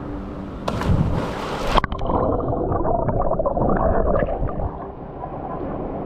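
A person lands in a waterfall pool with a loud splash about a second in. The sound then turns muffled, with bubbling and gurgling, as water washes over the action camera at the surface.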